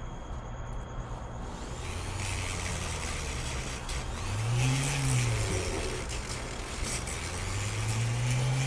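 Electric motor of a hanging flex shaft rotary grinder, sped up and let slow down twice with the foot pedal, its hum rising and falling in pitch each time.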